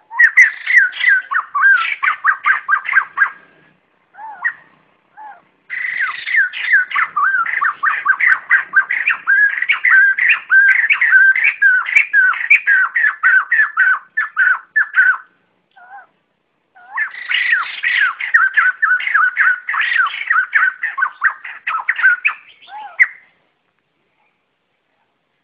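White-crested laughingthrush flock call: loud bouts of rapid chattering notes, three long runs with a few single calls between them, stopping a couple of seconds before the end.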